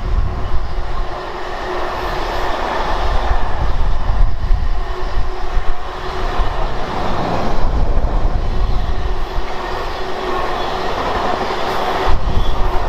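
Intermodal container freight train's wagons rolling past on the line below: a steady rumble of wheels on rail with some clickety-clack.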